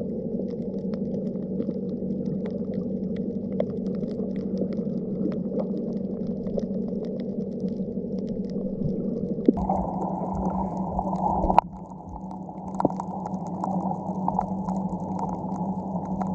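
Underwater ambience: a steady muffled low rumble with many scattered sharp clicks and crackles. The tone of the rumble changes about nine and a half seconds in, and a sharp knock comes soon after, followed by a brief dip in level.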